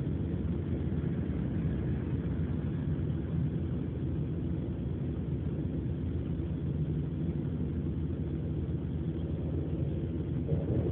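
Steady low rumble of a car on the move, heard from inside the cabin. Near the end a louder sound with more middle pitch comes in over it.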